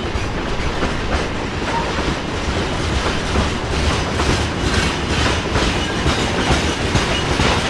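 Train running on the rails: a steady heavy rumble with the wheels knocking and rattling over the track.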